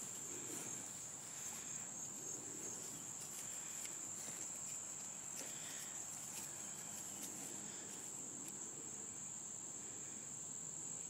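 Steady high-pitched insect chorus, like crickets, with faint short rustles now and then in the first half.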